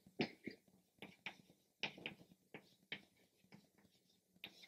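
Chalk writing on a chalkboard: a string of faint, irregular short taps and scratches, about three a second, as the chalk strikes and drags across the board.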